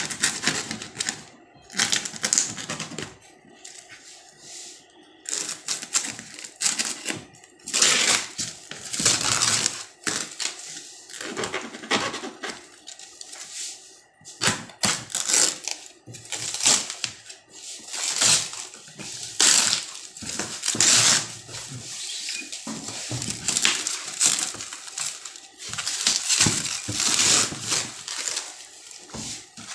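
Foam packing wrap and parcel tape being slit with a knife and torn open by hand: a run of irregular crinkling, tearing and scraping rustles.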